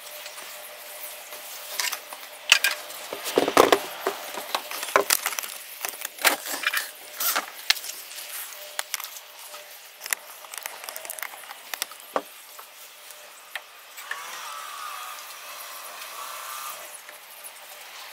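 Handling noise from a cut sheet of carpet being moved and laid into place: irregular knocks, clicks and rubbing, busiest in the first half, then occasional taps.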